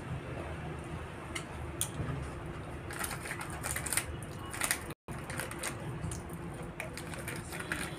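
Short clicks and crackles of Oreo biscuits being bitten and chewed, with a plastic biscuit packet crinkling as a hand reaches into it about three to five seconds in, over a low steady background hum. The sound cuts out for an instant about five seconds in.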